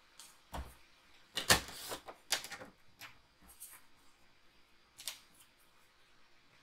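Designer paper being handled and cut to size: a series of short clicks and knocks, the loudest cluster about one and a half to two and a half seconds in, then a few lighter clicks.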